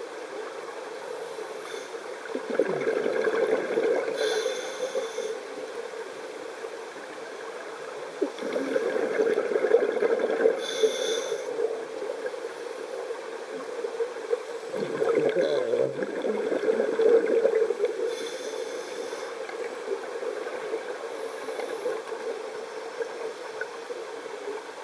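Scuba diver breathing through a regulator underwater: short hisses of inhalation through the demand valve and three longer stretches of exhaled air bubbling out, over a steady underwater hiss.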